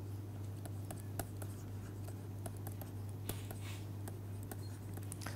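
Pen writing: faint scratching strokes and light ticks of the tip on the writing surface, over a steady low hum.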